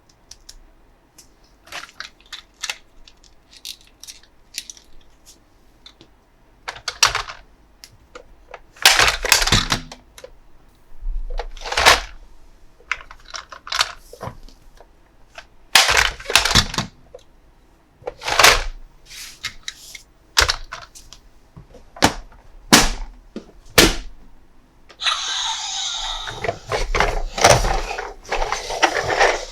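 Toy pieces and packaging being handled in an unboxing: scattered light clicks and taps, a dozen or so short rustling, scraping strokes, and a longer stretch of rustling over the last few seconds.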